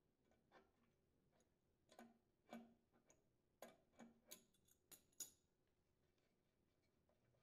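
Faint clicks and taps of a wrench working a small engine fuel filter loose from the bottom of the fuel tank: a scattered run of short ticks, most of them bunched between about two and five seconds in.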